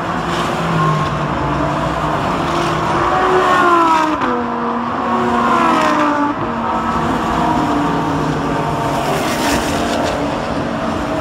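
Race cars passing at speed down the front stretch, each engine's pitch rising as it approaches and dropping as it goes by; the loudest passes come about four and six seconds in.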